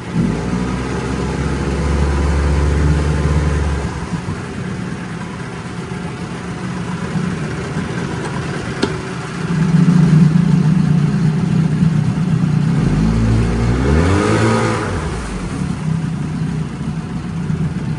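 1974 Evinrude 9.9 hp two-cylinder two-stroke outboard running in a test tank, its speed changing with the throttle. About fourteen seconds in it revs up briefly and settles back down.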